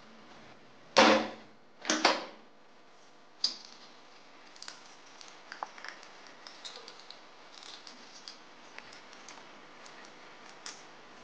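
Small irregular metallic clicks and ticks as needle-nose pliers grip and bend steel wire against an aluminium soda can bottom. Two louder handling noises come about a second apart near the start, then a sharp click.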